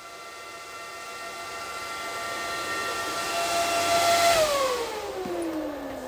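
Intro sound effect: a held, whistle-like chord of several tones swells up under a growing hiss, then about four seconds in slides steadily down in pitch and fades.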